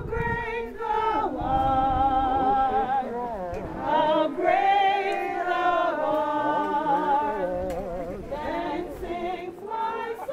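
A group of voices singing a hymn, women's voices most prominent, with long held notes that waver with vibrato and short breaks between phrases.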